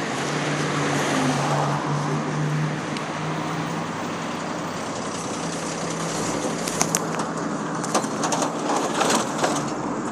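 Steady street traffic noise with the low hum of a running vehicle engine. Scattered sharp clicks come in over the second half.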